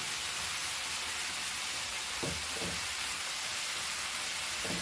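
Chopped onions and tomatoes sizzling steadily in a non-stick frying pan as a spatula stirs them.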